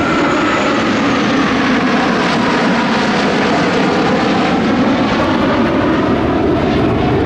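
Formation of four F-15 Eagle fighters flying past, the jet noise of their F100 turbofan engines loud and steady, with a whine that slowly falls in pitch as they go by.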